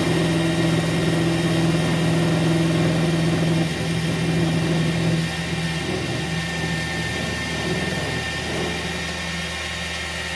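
Metal lathe running at about 1,000 RPM while a carbide tool faces the end of a long bar hanging far out of a collet. A steady droning tone is strongest at first and eases off about four to six seconds in, leaving the lathe running more quietly.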